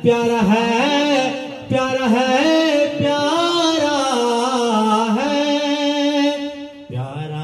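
A man singing solo into a handheld microphone, long held notes with wavering ornaments, as a test of the JTS TK-600 vocal microphone. The voice breaks off briefly near the end before a lower note starts.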